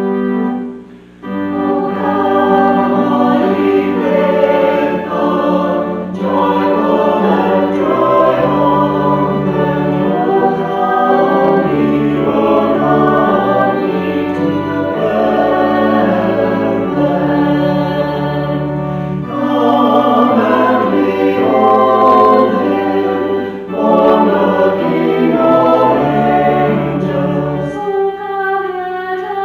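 Choir singing a hymn with organ accompaniment. A held organ chord breaks off about a second in, then the voices come in over sustained organ notes.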